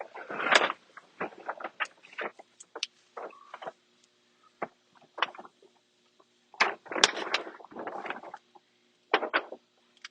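Irregular bursts of rustling and crinkling from a large vinyl wall decal and its backing paper being handled and pressed onto the wall, with a few sharp clicks and pauses between.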